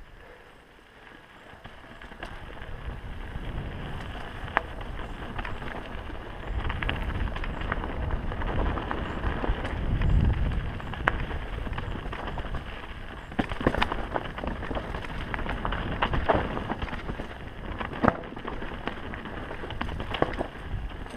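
Mountain bike riding fast down a dirt singletrack: a steady rumble of tyres and wind on the camera's microphone, with the bike rattling and sharp knocks as it hits rocks and roots. It grows louder about two seconds in.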